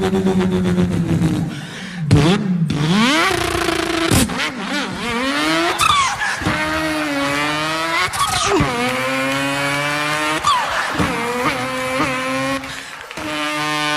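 A person imitating a racing car engine with their voice: the engine note glides up and down in a series of revs, breaking off and starting again every second or two like gear changes.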